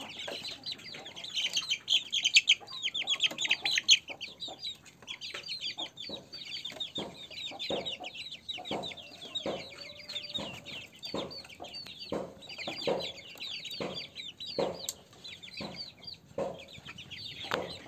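A flock of month-old kampung × Bangkok crossbred chicks peeping rapidly in high, downward-sliding notes, in bursts that are loudest in the first few seconds, with shorter, lower clucks mixed in every second or so.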